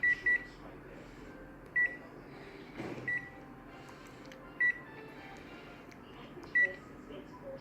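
Short high-pitched electronic beeps from a machine: a quick pair, then single beeps every one to two seconds, six in all. A brief soft rustle comes about three seconds in.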